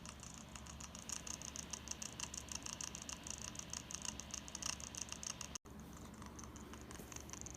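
Dell Inspiron 5505 laptop's cooling fan making a rapid, uneven clicking rattle over a steady low hum, an abnormal noise that the owner takes for a fan fault. The sound cuts out for a split second about five and a half seconds in.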